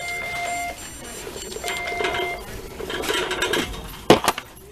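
Two electronic beeps, then items clinking and rattling as they are handled, with a sharp knock near the end.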